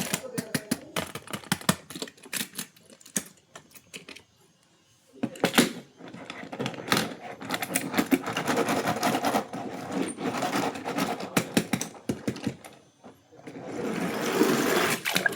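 Toy packaging being handled and opened: rapid clicking and crackling of plastic and card. A short quiet pause comes about four seconds in, and a louder rustle comes near the end.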